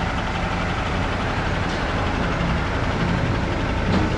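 Dump truck's diesel engine running steadily at low revs while the truck backs in through a gate.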